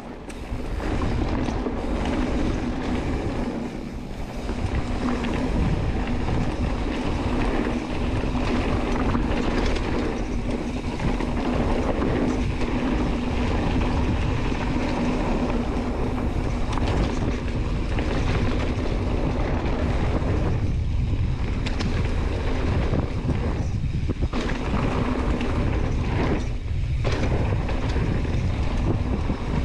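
Mountain bike running fast down a rough trail: steady wind rush over the camera microphone, with tyre roar and the clatter of the bike over rough ground.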